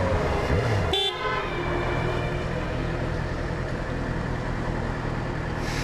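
Yamaha FZ6R's 600cc inline-four motorcycle engine running steadily in slow city traffic, heard through a helmet-mounted mic, with a short horn toot about a second in.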